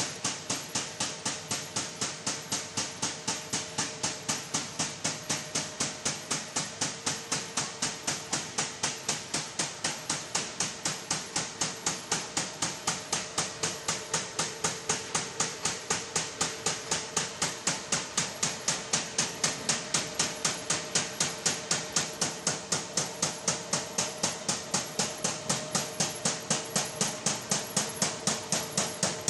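CHM-1700 servo-driven high-speed paper sheeter running, its cutter chopping the paper web into sheets in an even, fast rhythm of sharp clicks, about three a second, over a steady machine hum.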